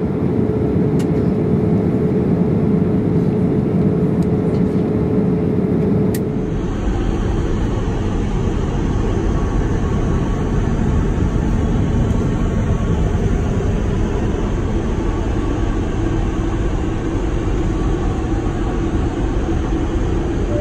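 Steady jet airliner cabin noise aboard a Boeing 787-8: engine and airflow rush with a faint steady tone. About six seconds in it changes abruptly to a deeper rumble.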